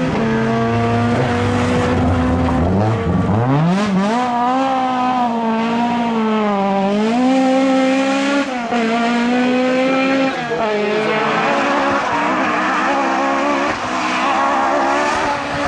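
Rear-wheel-drive rally car engine revving hard, its pitch dropping, then climbing steeply about three seconds in and swinging up and down for several seconds as the car is driven sideways, with tyre noise. In the last few seconds the sound turns rougher and noisier.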